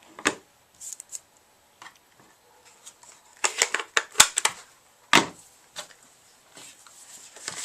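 Cardstock and paper-crafting supplies handled on a work surface: brief scrapes, rustles and taps, with a sharper knock about five seconds in.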